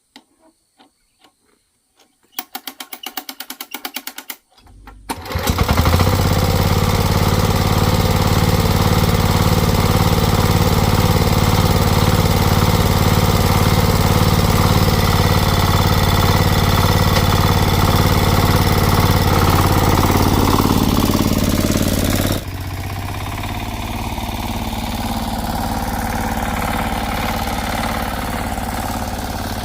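A small engine starts after a short rapid rattle and runs loud and steady, then drops to a lower, steady idle about 22 seconds in.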